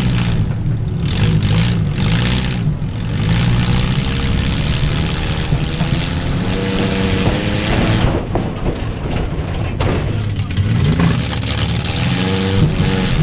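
Demolition derby car engines running loud and revving repeatedly, their pitch climbing and dropping, with a few sharp knocks between about eight and ten seconds in.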